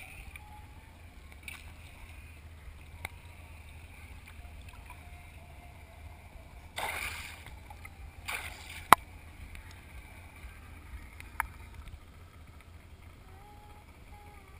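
Malibu VLX wakeboard boat's inboard engine idling in neutral, a steady low rumble. Water sloshes against the camera twice about halfway through, followed by a sharp knock.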